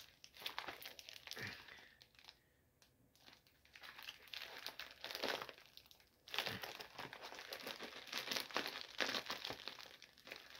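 Crinkling and rustling of a shiny silver plastic mailer as hands pull it open, in irregular bursts with a short lull about two to three seconds in.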